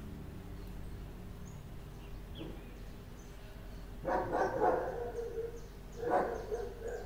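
A dog barking twice in the background over a low steady hum: a longer bout about four seconds in and a shorter one about six seconds in.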